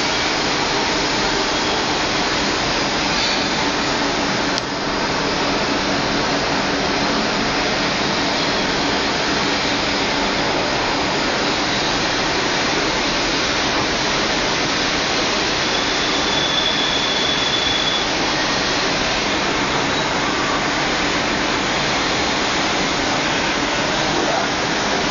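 GHB-1340A gear-head metal lathe running steadily during turning, a loud, even machine noise with a faint hum. A short high-pitched whine sounds about two-thirds of the way through.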